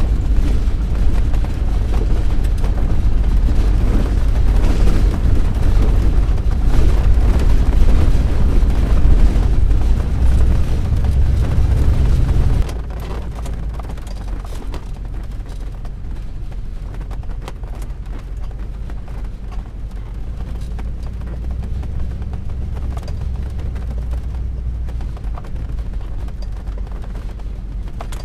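Class C motorhome driving on a dirt road, heard as a heavy low rumble with rattling. About halfway through it drops suddenly to a quieter, steadier hum.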